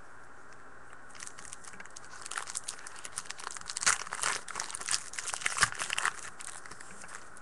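A trading card pack's wrapper being torn open and crinkled, a run of quick crackling rustles lasting about five seconds.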